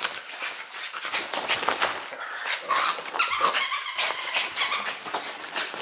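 Small flat-faced dog playing excitedly with a plush squirrel toy on a couch, making dog noises over scuffling on the cushions, with a high-pitched squeal from about two and a half to four seconds in.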